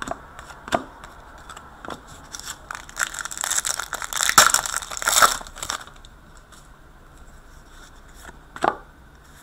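A 2015-16 Upper Deck Portfolio hockey card pack wrapper being torn open and crinkled by hand, a dense crackling stretch in the middle. Light clicks from cards being handled come before it, and a single sharp snap near the end.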